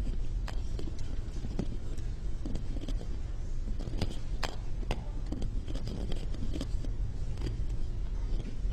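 Two golf balls clicking and rubbing against each other as they are rolled in one hand: scattered light clicks over a low steady hum.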